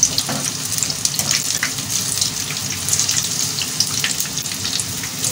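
Boiled eggs coated in gram-flour batter deep-frying in hot oil in a wok: a steady sizzle thick with small crackles and pops.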